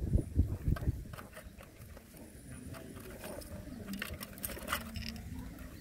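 Puppies wrestling in play on gravelly dirt: scuffling and scratching, with scattered small clicks from paws and grit, louder in the first second.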